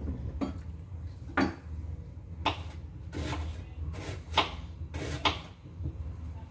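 Kitchen knife cutting an onion on a wooden chopping board: about eight sharp knocks of the blade on the board at an uneven pace, over a low steady hum.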